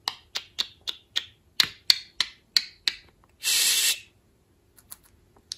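Budgerigar making a run of about ten sharp clicks, three or four a second, then a short hissing 'shh' sound.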